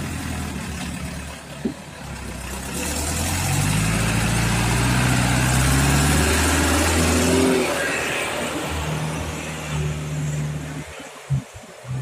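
A diesel truck loaded with oil palm fruit bunches pulls through deep mud. Its engine grows louder as it passes close, about halfway through, then fades as it moves away. A couple of short thumps come near the end.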